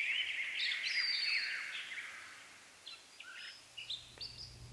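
Forest ambience of songbirds chirping and calling: a dense run of short chirps and quick whistled glides in the first two seconds that fades to a few scattered calls.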